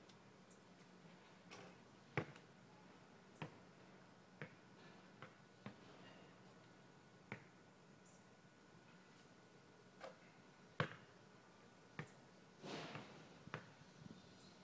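A basketball knocking sharply off the hoop and bouncing on the court, a series of short separate impacts, some coming closer together as the ball settles, with a brief rustle near the end.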